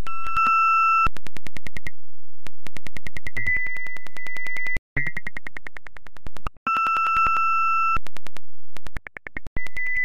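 Synthesized sound from a Mandelbrot set sonifier, each clicked point's orbit played as audio: a series of electronic tones, some steady and high, others a rapid ticking buzz of about ten clicks a second, changing every second or two with brief cut-offs between them.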